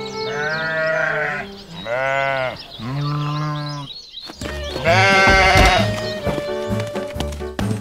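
Sheep bleating, about four long calls one after another, over background music.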